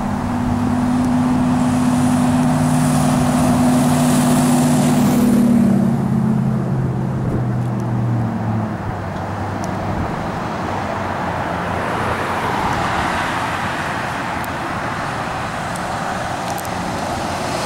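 Military fighter jets passing overhead: a loud, steady rushing noise with a high hiss and a low hum that fade out between about six and nine seconds in, then a broad rushing noise that swells again around twelve to fourteen seconds.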